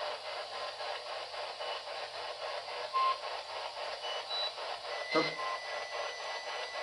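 Radio scanner used as a spirit box sweeping through stations: choppy static pulsing about five times a second, with a short louder blip about three seconds in and another a little after five seconds.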